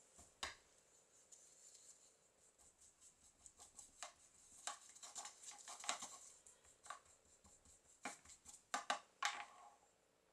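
Paintbrush stirring and tapping in a white plastic paint palette well, mixing brown craft paint with water and floating medium: faint, scattered light taps and clicks, with a quicker cluster of taps near the end.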